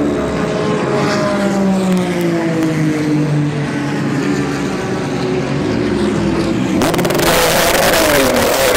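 Race car engines drone with slowly falling pitch, then about seven seconds in a much louder engine revs hard as the #7 Acura DPi prototype accelerates out of its pit stall.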